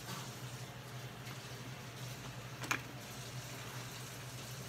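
Quiet room tone: a steady low hum with faint hiss, and one sharp click about halfway through.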